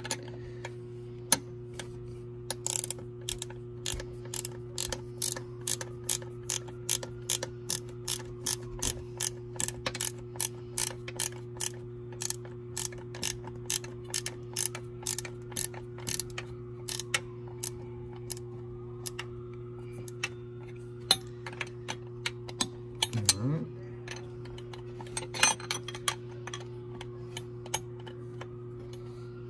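Ratcheting open-end wrench clicking as it turns the nyloc nuts on a raw-water pump's impeller cover, a steady run of clicks about two to three a second, over a steady low hum.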